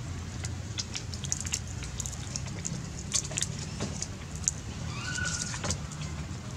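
Sharp clicks and crackles as baby macaques handle and crack peanuts on dry leaf litter, over a steady low hum. A short high squeak comes about five seconds in.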